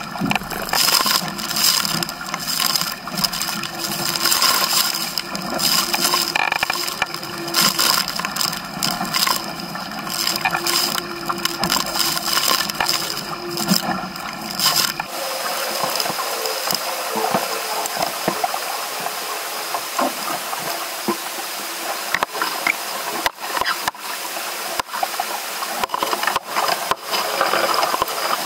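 Water rushing and splashing along the hull of a Musto Skiff sailing dinghy under way, with scattered knocks from the boat. About halfway through, the deeper part of the sound drops away and the rush turns thinner.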